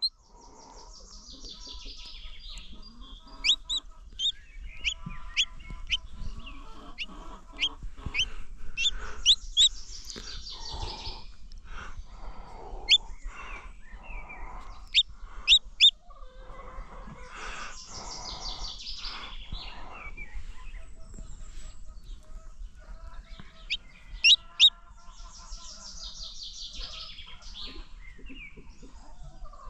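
Chicks peeping: short, sharp, high cheeps coming in quick runs, with longer stretches of softer chirping in between.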